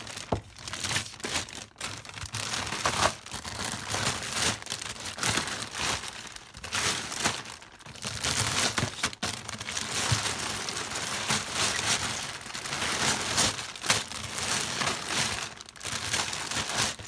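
Zip-lock plastic bags crinkling and rustling as a hand digs through a bucket of bagged fingerboards, in irregular bursts with a few sharp clicks.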